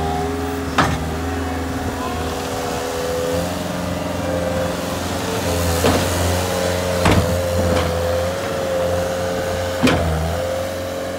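Cat 289C compact track loader's diesel engine running steadily as the machine drives on its rubber tracks, with a steady whine over the engine and about five sharp clanks spread through.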